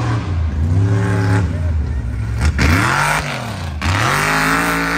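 Mega truck's big engine revving hard, the pitch climbing and dropping several times in quick succession. The last rev is held for over a second, with a loud rushing noise over the top.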